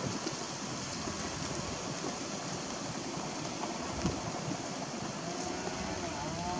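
Steady outdoor background noise with no clear single source, and a faint wavering pitched sound near the end.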